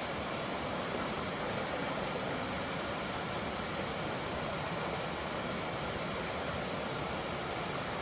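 Steady rush of a flowing creek, an even hiss of running water that holds level throughout.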